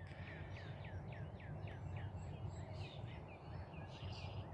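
A songbird singing a rapid series of short down-slurred notes, about four a second. It pauses briefly, then starts a new run near the end, over a steady low background rumble.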